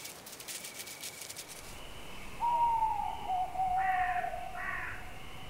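An owl hooting: one long drawn-out hoot, starting about two seconds in and falling slightly in pitch, with a wavering, quavering note over it near its end.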